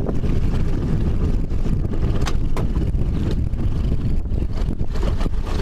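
Steady low rumble of wind buffeting the microphone on open water, with a couple of light clicks a little over two seconds in.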